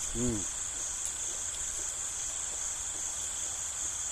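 Steady high-pitched chorus of night crickets. About a quarter second in, a man eating gives one short hummed 'mm' with a rise and fall in pitch.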